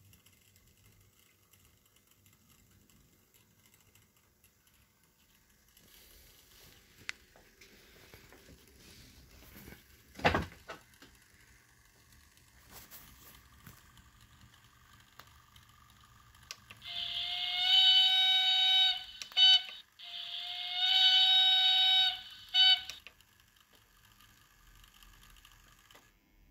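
Sampled steam whistle from the ESU LokSound sound decoder in a Märklin BR 85 model steam locomotive: two long, steady-pitched blasts in the second half, each about two and a half seconds. Before them the running is faint, with one sharp thump about ten seconds in.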